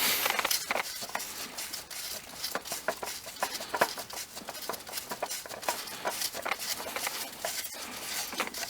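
Irregular small clicks, taps and scrapes as a spin-on oil filter is turned by hand off its mount in a car's engine bay.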